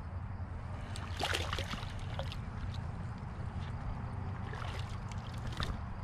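A small fish splashing and sloshing at the surface beside a boat's hull as it is reeled in, in two short flurries, about a second in and again near the end. A steady low rumble runs underneath.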